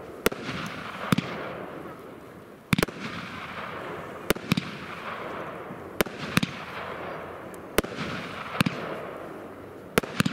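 Röder Glitzer Blitzer, a 16-shot 30 mm consumer firework battery, firing: sharp bangs every second or so, some in quick pairs. Each is followed by a hiss from the glitter stars that fades away.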